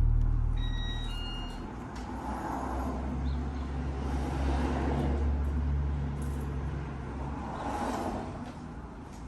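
Steady low rumble of a motor vehicle running, with a few short high tones about a second in.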